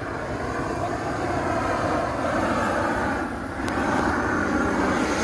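Gas blowtorch burning steadily with a rushing noise inside a large paper festival balloon, heating the air to inflate it. The rush dips briefly a little past three seconds in, then picks up again.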